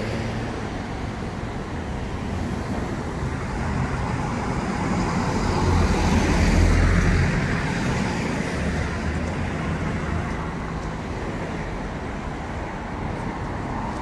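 City street traffic: cars passing, a steady rumble and tyre noise that swells to its loudest about halfway through, then eases off.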